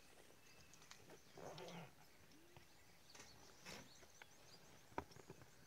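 Near silence: faint outdoor ambience with a few soft clicks and rustles and faint high chirps.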